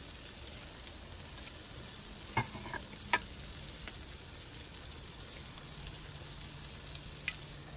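Cabbage-and-egg pizza base frying in a non-stick pan on a gas hob, a faint steady sizzle. A few light clicks sound a little over two seconds in and again about three seconds in.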